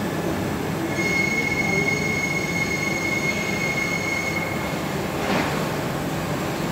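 Hartford 2060 vertical machining centre during a tool change: a steady high whine for about three and a half seconds as the spindle head travels upward, over the machine's running hum, then a short hiss a little after five seconds in.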